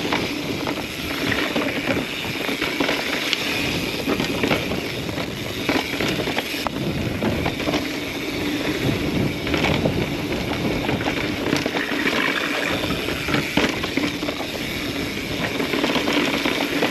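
Mountain bike riding over a rocky dirt singletrack: continuous rolling noise with frequent clicks and rattles as the bike hits rocks and bumps.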